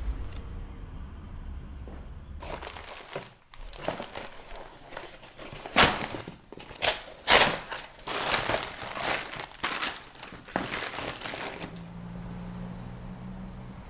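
Plastic bag crinkling and rustling as it is handled and packed: a run of irregular crackles, the sharpest and loudest about six to seven and a half seconds in, stopping about two seconds before the end. A faint low hum follows.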